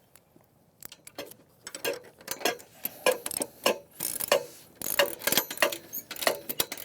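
Ratchet wrench clicking in repeated back-and-forth strokes as a nut is tightened onto a bolt joining fence sections. The clicks begin sparsely about a second in and come in quick runs after that.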